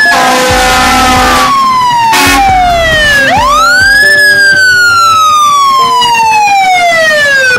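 Emergency vehicle siren wailing: its pitch falls slowly, then about three seconds in it winds up quickly and falls slowly again.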